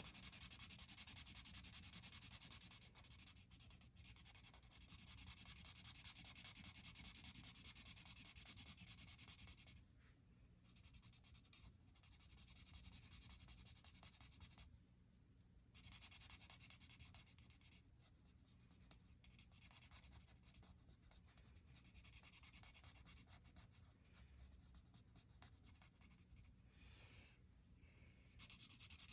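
Faint scratchy rubbing of a felt-tip marker colouring on paper, in stretches of strokes broken by short pauses.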